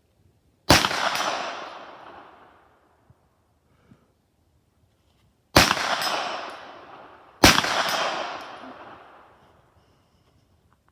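Three single 9mm gunshots: one, then two more about five and seven seconds later. Each report echoes off the surroundings and fades over about two seconds.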